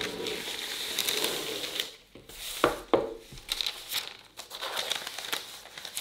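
Sheet of parchment paper crinkling and rustling as it is dragged onto a metal baking tray, with two sharp taps a little after the middle.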